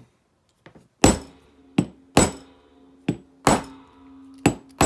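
Dye Hyper 3 paintball regulator body knocked hard against a surface about six times, sharp metallic knocks that each leave a short ring, to free the internal piston and spring stack.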